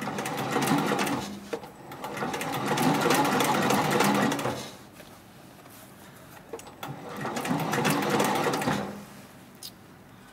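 Hightex 204 102 MD heavy-duty decorative-stitch sewing machine stitching leather, running in three short spells of a couple of seconds each, stopping briefly between them.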